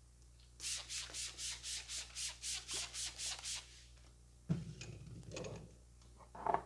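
A barber's hands rubbing briskly during a head massage, about a dozen quick, even strokes at about four a second. They are followed by a dull thump, looser rubbing and a short, sharper sound near the end.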